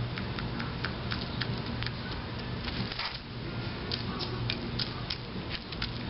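Birds pecking at a dish of mixed birdseed, mainly a mourning dove: irregular small clicks and taps, a few a second.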